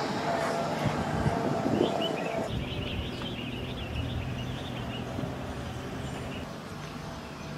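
A motor vehicle's engine running past on the road and fading away, its higher whine stopping about two and a half seconds in. High chirping, typical of birds, comes in briefly after about three seconds.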